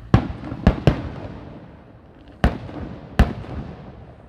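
Aerial fireworks shells bursting: five sharp booms, three within the first second and two more at about two and a half and three seconds, each trailing off in an echo.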